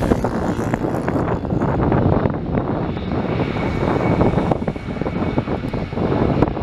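Boeing 777-300ER's two GE90-115B turbofans running steadily as the airliner taxis, a dense rumble with a faint high whine about halfway through.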